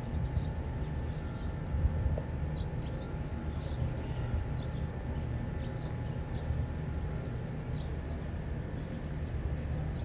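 Outdoor ambience: a steady low rumble, likely wind on the microphone, with small birds chirping briefly here and there.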